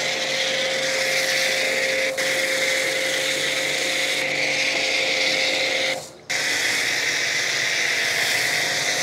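Electric high-pressure car washer with a 2.5 HP motor running: a steady motor hum under the hiss of the water jet. It cuts out briefly about six seconds in and comes straight back.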